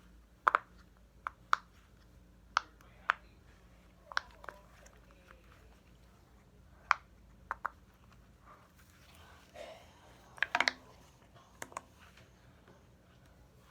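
Irregular sharp clicks and taps from small plastic fidget toys being handled, about a dozen in all, with a quick run of several clicks near the end.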